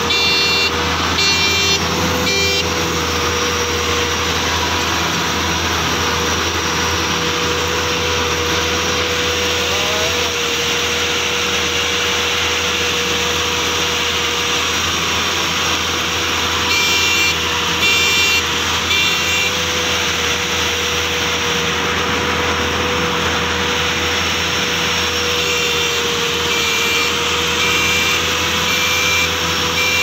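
Bimo 110 Plus combine harvester running steadily at work, a constant drone with a steady whine. An electronic beeper sounds in three short runs of rapid beeps: near the start, at about seventeen seconds, and near the end.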